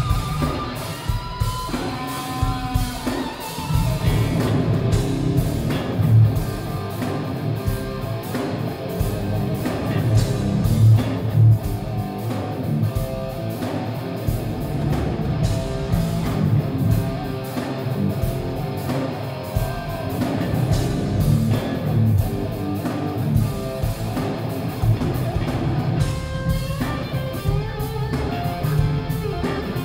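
A live rock band: a lead electric guitar plays sustained melodic lines over drums and bass, and the band gets fuller and louder about four seconds in. It was recorded from the audience on a phone's microphone, so it sounds muffled.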